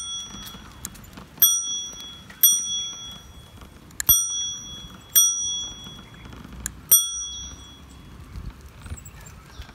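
Bicycle bell rung five times at uneven gaps of about one to two seconds; each single ding rings out and fades within about half a second. Light clicks and rattles from the rolling bike are heard between the rings.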